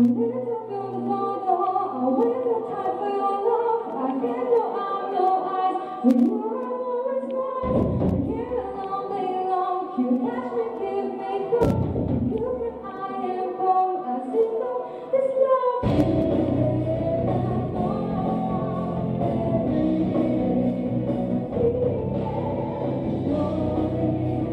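Live band performance with a woman singing lead into a microphone over keyboards. Deep low hits land about 8 and 12 seconds in, and the full band comes in near 16 seconds in, thickening the sound.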